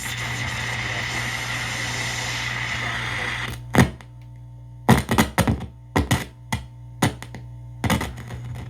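Static hiss from the AM radio of a vintage General Electric record player, tuned off-station, for about three and a half seconds; it then cuts off with a knock, leaving a steady low hum, and a quick run of clicks and knocks follows.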